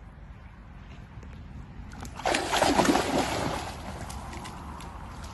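English cocker spaniel splashing as it bounds through shallow stream water. The splashing comes on suddenly about two seconds in and is loudest for about a second before it fades.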